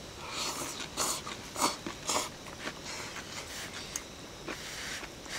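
Two people slurping udon noodles, a quick run of short hissing slurps in the first couple of seconds, then softer scattered eating sounds.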